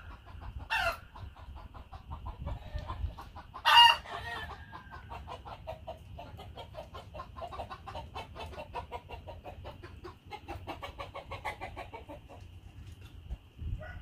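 Chickens clucking and cackling: two short, loud squawks in the first four seconds, then a long run of rapid clucks.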